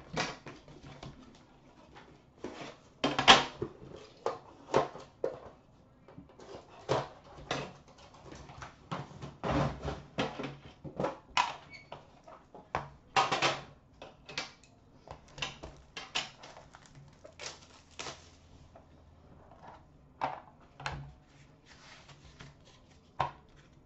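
A sealed hockey-card box being cut open and unpacked by hand: irregular taps, clicks and scrapes of cardboard as the seal is snipped, the sleeve slid off and the inner box lid lifted. A faint steady low hum runs underneath.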